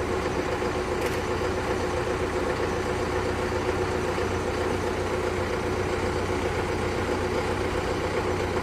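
Combine harvester's engine running at a steady speed, an even hum that does not change.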